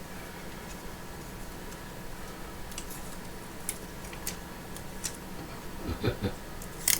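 A few scattered light clicks and ticks from hands handling an adhesive screen seal film, over a low steady background hum.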